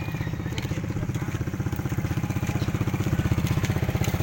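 Small engine running steadily, with a fast, even pulse and a few light ticks over it.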